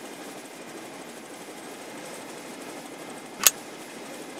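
A four-point harness strap tongue latching into the round rotary buckle with one sharp click about three and a half seconds in, over a steady low background hiss.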